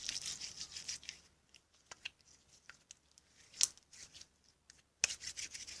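Slime being kneaded and stretched in the hands: faint sticky crackling with a few small pops and clicks, with a lull in the middle.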